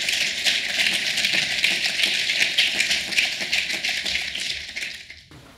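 Audience applauding, many hands clapping in a dense patter that cuts off suddenly near the end.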